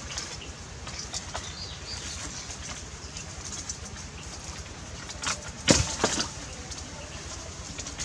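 Dry branches and twigs rustling, scraping and cracking as they are dragged over stones to feed a wood fire, with a few sharp cracks about six seconds in, over a steady rush from the stream.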